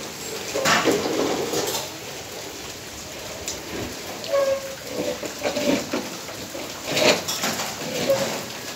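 Steady rain falling on a wet concrete rooftop. Several short, louder sounds stand out above it: about a second in, around five seconds, and the loudest just after seven seconds.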